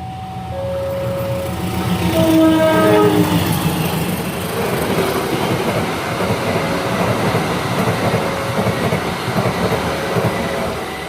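Train passing close by, sounding its horn in short blasts as it approaches. The horn drops in pitch as the train goes past about two to three seconds in. After that comes the long rumble and rattle of the wheels and cars on the rails.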